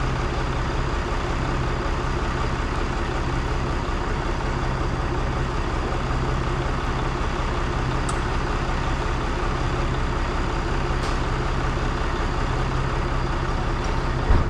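An engine running steadily at a constant pitch, with a short knock near the end.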